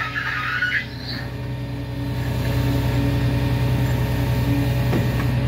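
Engine of heavy work equipment running steadily: a low hum with a fast, even throb. A brief high squeal comes right at the start.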